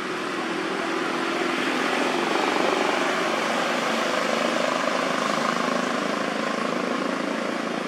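Engine noise of something passing, swelling to a peak a few seconds in and then fading away.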